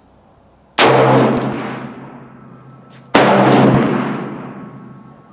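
Two shots from a semi-automatic AR-10-pattern rifle in 6.5 Creedmoor, a Bear Creek Arsenal upper on an Aero Precision M5 lower, about two and a half seconds apart. Each is a sharp crack followed by a long echoing decay.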